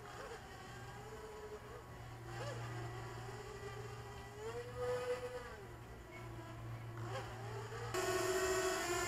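Grasshopper Hex 300 hexacopter's electric motors and propellers buzzing as it flies overhead, the pitch wavering with throttle and rising briefly about five seconds in. Near the end the buzz gets louder and lower in pitch.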